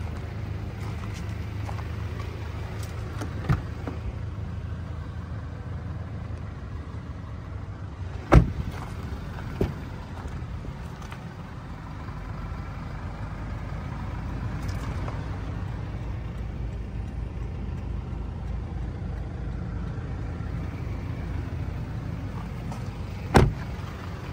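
Steady low rumble, broken by a few sharp knocks: a Toyota Land Cruiser Prado TX's door shutting with a loud thud about eight seconds in and again near the end, with lighter knocks between.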